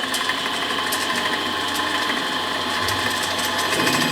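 Lathe running steadily while a groove is cut into the rod, a continuous machine whine with several steady tones and fast fine ticking.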